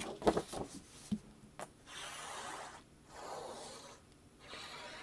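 Paper rubbed by hand, smoothing down a glued card-stock piece: three soft rubbing strokes of about a second each, after a few light taps in the first second or so.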